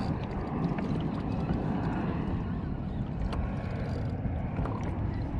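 Small Suzuki outboard motor running steadily at trolling speed, its low drone mixed with wind and water noise.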